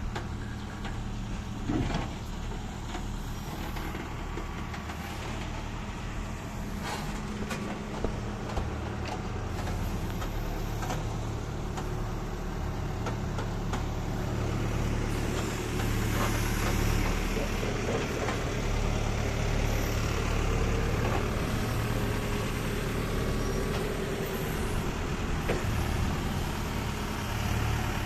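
Backhoe loader's diesel engine running steadily, with a few sharp knocks in the first several seconds. The engine grows louder about halfway through.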